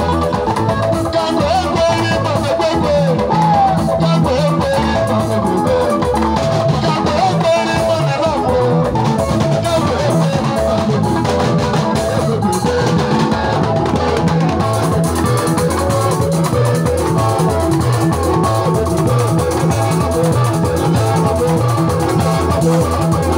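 Live band playing: electric guitars and bass over a drum kit and hand drums, with a steady beat and a man singing into a microphone.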